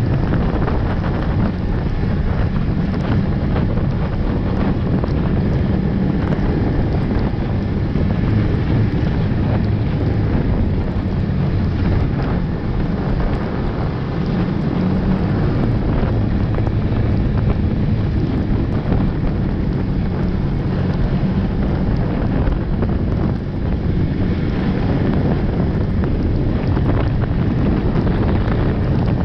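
Snowmobile engine and track running steadily at trail speed, with wind buffeting the microphone.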